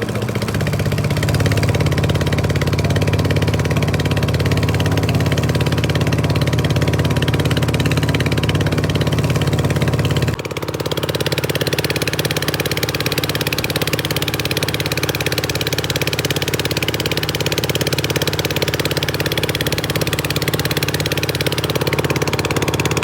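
Boat engine running steadily and loudly, with a brief dip about ten seconds in, after which its note settles at a different pitch.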